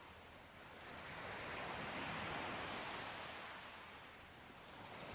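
Faint ocean waves washing in: one swell rises about half a second in, peaks around two seconds and ebbs away, and another begins to build near the end.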